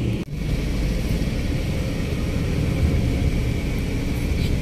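Steady low rumble of engine and road noise inside a moving car's cabin, with one brief dip just after the start.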